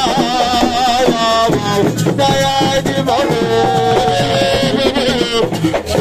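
Live amplified singing by a male voice, with long wavering sung notes, over hand drums beating a fast rhythm.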